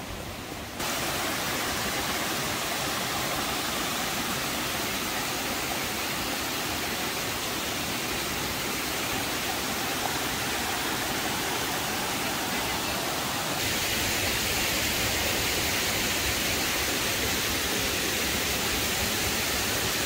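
Mountain stream rushing over small rocky cascades: a steady rush of water that turns a little louder and brighter about two-thirds of the way through.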